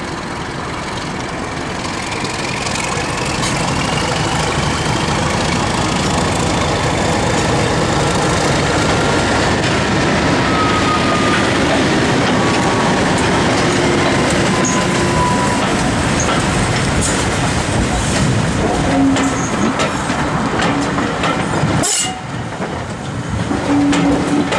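Class 31 diesel-electric locomotive's English Electric V12 engine working under power as it pulls away and passes close by, growing louder, with a rising whine and then a slowly falling tone. Near the end the coaches roll past, their wheels clicking over the rail joints.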